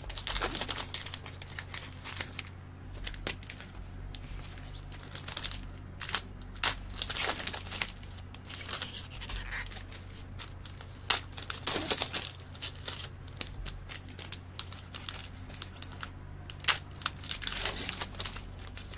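Trading-card pack wrappers crinkling and tearing as packs are opened and the cards handled, giving irregular rustles and sharp crackles over a low steady hum.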